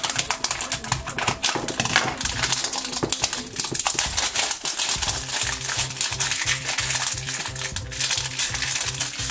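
Scissors snip through the clear plastic shrink-wrap on a plastic toy container, and the film is then peeled off with crackling and crinkling, over background music with a steady beat.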